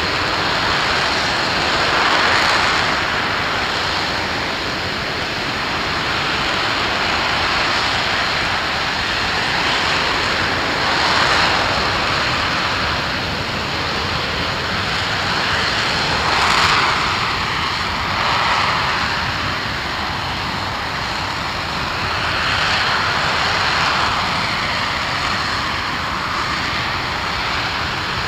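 Aerojet Rocketdyne RS-25 liquid-hydrogen/liquid-oxygen rocket engine firing steadily in a hot-fire test: a loud, continuous rushing noise that swells and eases every few seconds.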